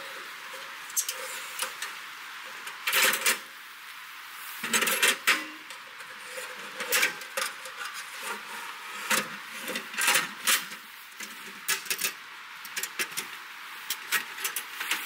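Irregular metal clicks and clanks of a Winnerwell Nomad View M steel wood stove being handled: its folding legs are swung out and locked, its door moves, and the stove is set upright, over a steady hiss.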